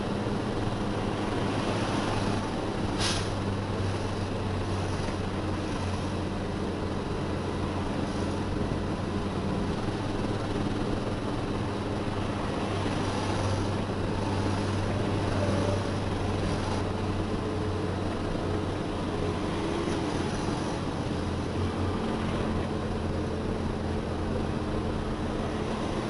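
Isuzu self-loader truck's diesel engine running steadily as the truck drives along, heard from inside the cab, with one sharp click about three seconds in.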